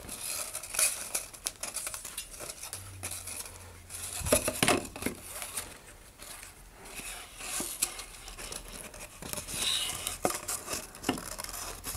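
Handling noise from paper model-rocket body tubes: scattered rustling, scraping and light knocks as elastic shock cord is pushed and fished through them, with a louder knock about four seconds in.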